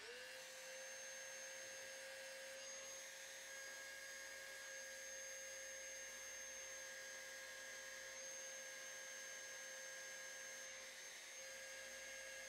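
Electric random-orbit sander running against a car's fender panel, heard faintly as a steady high hum that comes up to pitch in the first moment.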